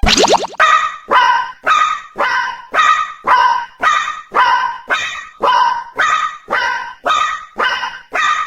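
Repeated short barks, about two a second, alternating between a lower and a higher pitch in the two-tone rhythm of a railroad crossing bell. A brief falling sweep comes at the start.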